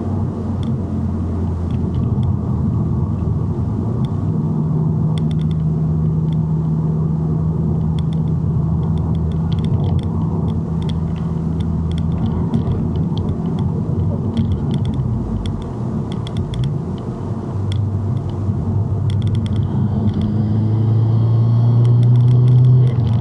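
Mazdaspeed3's turbocharged 2.3-litre four-cylinder engine running while the car drives, a steady drone that rises in pitch and loudness near the end as it accelerates. The car is down on power under boost: the pedal goes down and it barely pulls.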